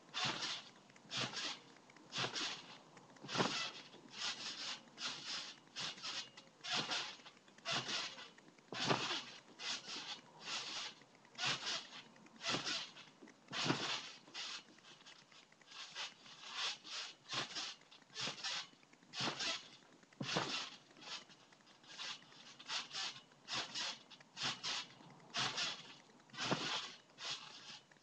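Trampoline being bounced on, giving a short rustling, creaking noise from the springs and mat with each bounce. The bounces come in irregular runs of about two a second.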